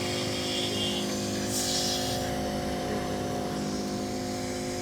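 Phone-screen separator machine with vacuum pump humming steadily while a cracked front glass is being lifted off the display, with a brief hiss about a second and a half in.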